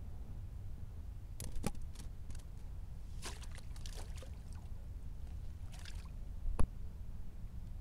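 Water splashing and dripping as a wire-mesh crawfish trap is lifted and set back in the shallows among rocks. There are a few clicks early on, bursts of splashing in the middle, and one sharp knock about two-thirds through, over a steady low rumble.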